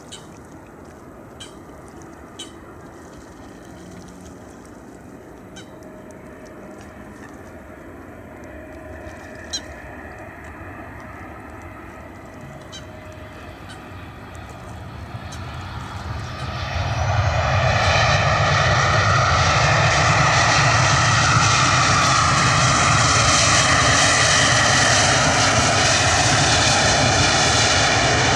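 Boeing 737-800's CFM56 jet engines on landing: a faint steady engine sound with a few short sharp clicks, building over a few seconds about halfway through into a loud steady roar as the engines go into reverse thrust after touchdown.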